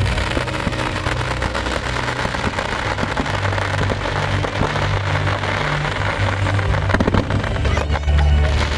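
Fireworks crackling densely, a rain-like patter of many small pops, with a cluster of sharper bangs about seven seconds in. Low steady tones sound underneath.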